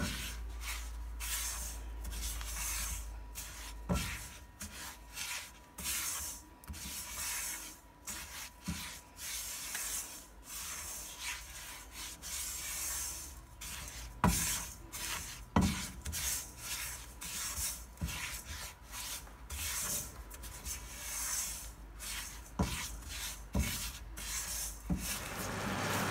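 Silicone spatula stirring and scraping dry granulated sugar around a non-stick pot as it heats to melt, in quick repeated gritty strokes. A few soft knocks come in between.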